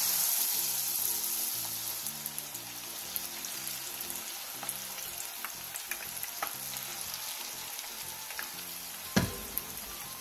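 Battered duck tenderloin strips deep-frying in hot oil in a frying pan, the first fry at medium heat: a steady sizzling hiss with scattered crackles and pops, a little louder in the first second or so as more pieces go into the oil. A single dull knock about nine seconds in.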